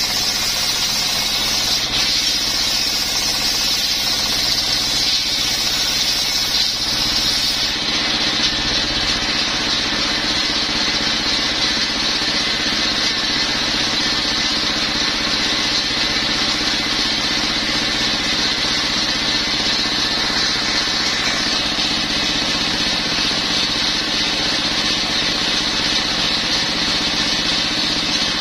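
Single-cylinder stationary diesel engine running steadily, belt-driving a large circular saw blade that spins free without cutting wood, giving a constant drone with a high whine over it.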